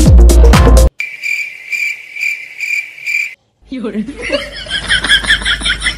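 Electronic background music cuts off about a second in, followed by cricket chirping in even high-pitched pulses. After a brief silence, denser rapid high chirping starts, with some low sounds beneath it.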